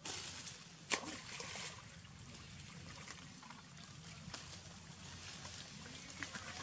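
Water splashing and sloshing as macaques swim and paddle through a river, with one sharp slap about a second in.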